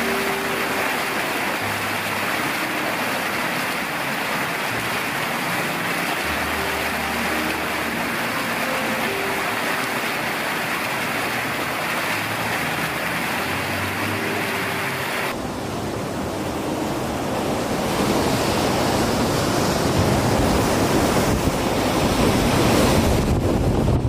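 A steady rush of spraying water with faint low musical notes beneath it. About fifteen seconds in it cuts to surf breaking on rocks, with wind buffeting the microphone and growing louder toward the end.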